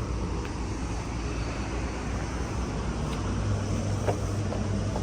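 Steady low rumble of outdoor background noise, with a low steady hum coming in about three seconds in and a few faint clicks near the end.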